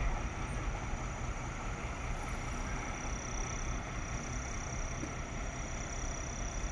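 Diesel engines of parked fire engines idling: a steady low rumble, with a faint steady high whine above it.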